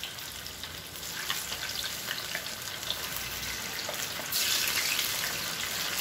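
Battered chicken pakoda pieces deep-frying in a kadai of hot oil, with steady sizzling and crackling. It grows louder about four seconds in, as more pieces go into the oil.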